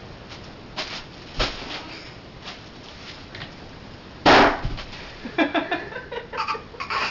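Bubble wrap popping: a few small sharp pops, then one much louder pop about four seconds in, followed by a small child's voice.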